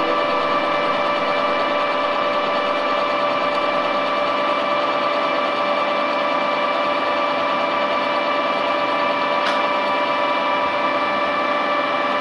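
Metal lathe running steadily with an electric motor rotor spinning between centres, giving an even machine hum with a constant whine from the lathe's drive.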